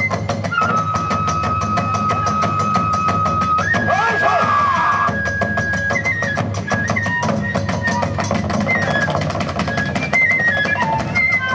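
Kagura festival music: a flute holds long high notes, then plays shorter phrases, over fast, unbroken drumming and clashing hand cymbals.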